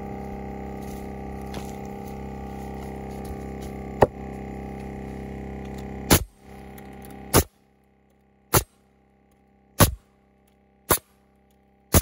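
Pneumatic framing nailer driving nails into a lumber beam on a post: about seven sharp cracks, roughly one every second or so. An air compressor runs steadily under the first few shots, then shuts off about seven and a half seconds in, leaving only the nail shots.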